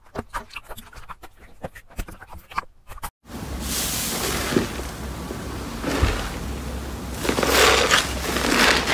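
Hands pressing clear slime on a plate, a run of small sticky clicks. After a cut, a thick foamy blue-and-white slime squeezed and kneaded by hand, an airy crackling hiss that swells louder in waves near the end.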